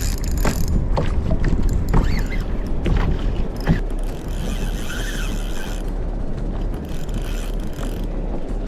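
Wind buffeting the microphone over water slapping against a kayak's hull, with scattered clicks and knocks in the first half.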